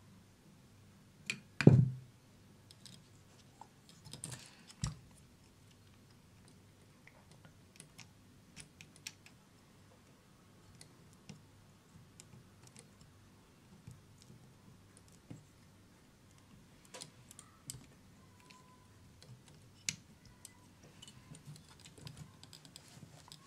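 Scattered small clicks and taps of plastic model-kit parts being handled and pressed together, with a louder knock about two seconds in.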